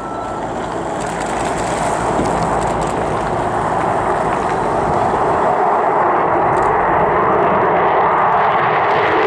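Jet engines of three Sukhoi Su-27 fighters at take-off power as they lift off together and climb away: a broad, steady engine noise that grows louder over the first couple of seconds and then holds.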